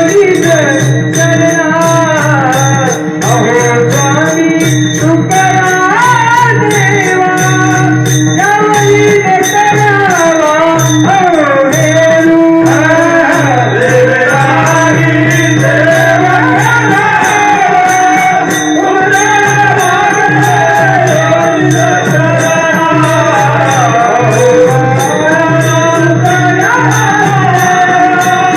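Male kirtan singing: a long, wavering devotional line drawn out with many pitch turns, over a steady held drone and a regular hand-drum and small-cymbal beat.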